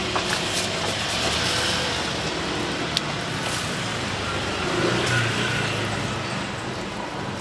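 Steady hiss of a Thai-style crepe sizzling on a hot crepe griddle, over a low hum of street traffic, with a single click about three seconds in.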